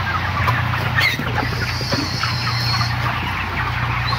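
A large flock of five-week-old broiler chickens clucking and peeping all together, many short calls overlapping, over a steady low hum.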